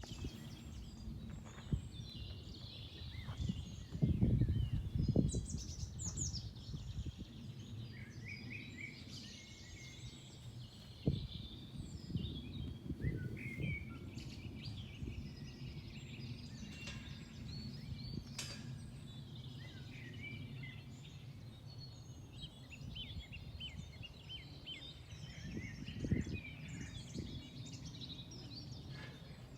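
Several songbirds singing and chirping, many short high calls and trills overlapping throughout. Underneath runs a steady low rumble, with louder low thumps or gusts, the loudest about four to six seconds in and again near eleven seconds and near the end.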